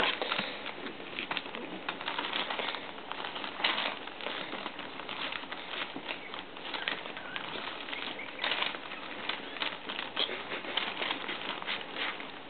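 Newspaper crinkling and rustling under the paws of Boston terrier puppies as they scuffle and wrestle, a steady run of small crackles with a few louder scrapes, mixed with the puppies' soft little grunts.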